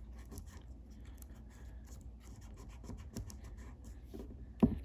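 Faint rubbing and scratching of adhesive tape being folded over and pressed down by hand on a coin battery in a welding-helmet lens cartridge, with small clicks throughout and one short knock near the end.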